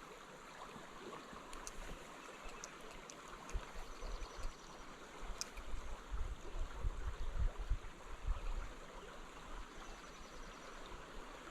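Spring creek water running steadily, with some low bumps about halfway through.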